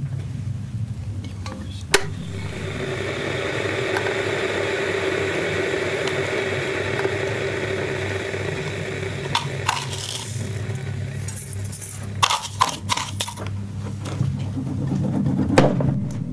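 Kitchen sounds: a sharp click, then a steady whirring noise that runs for about eight seconds, followed by a run of clinks and clattering.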